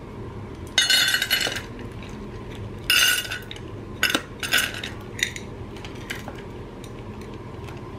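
Dry cat kibble poured from a metal measuring cup into a stainless-steel bowl, pellets rattling on the steel in bursts: a long pour about a second in, another around three seconds, then several shorter trickles.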